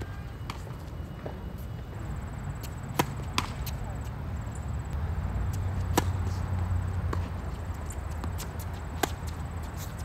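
Tennis ball being hit and bounced on a hard court: a few sharp knocks, the loudest a racket striking the serve about six seconds in, and another strike about three seconds later. A steady low rumble runs underneath.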